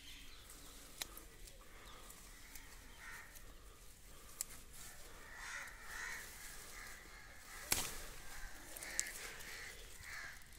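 Faint bird calls, several short calls, some in pairs, over the rustle of brinjal leaves being handled. A few sharp clicks or snaps come from the plants being worked by hand; the loudest is about three-quarters of the way through.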